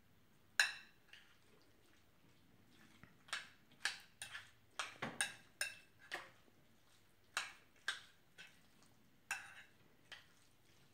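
A utensil clinking against a ceramic casserole dish while stirring a thick casserole mixture: irregular sharp clinks with a short ring, most of them bunched together in the middle.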